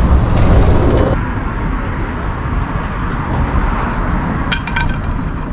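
Steady low rumble of city street traffic. About four and a half seconds in, a few sharp clinks.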